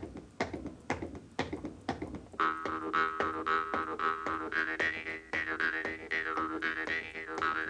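Shoe tapping a steady beat on a hard floor, about two taps a second; about two and a half seconds in, a jaw harp (Jew's harp) joins with a twanging drone whose overtone melody shifts as the player's mouth changes shape, over the continuing foot taps.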